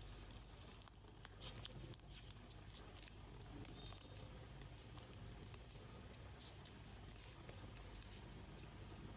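Faint crinkling of origami paper being folded and creased by hand: a string of short, crisp crackles over a steady low hum.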